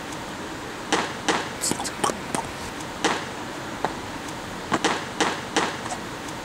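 Scattered short bursts of voices, with no clear words, over a steady hiss.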